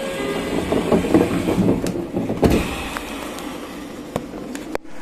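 Local train standing at the platform with its engine running just before departure, with clattering and rattling through the first half and a sharp knock near the end.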